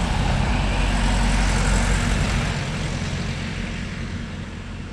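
A motor vehicle driving past on a road, its engine and tyre noise swelling to a peak a second or two in and then fading away.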